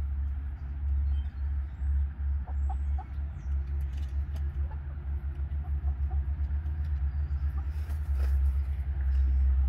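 Low, unsteady rumble of wind buffeting the microphone, with a few soft, faint hen clucks.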